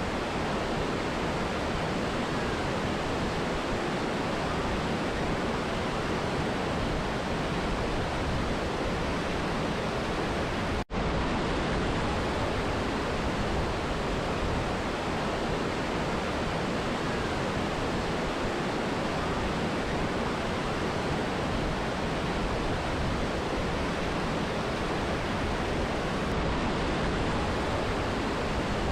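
Rushing water of a mountain river and waterfall, a steady even roar that breaks off for an instant about eleven seconds in.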